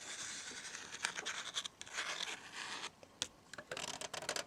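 Fingernails scratching and rubbing over a book, with scattered light taps and clicks.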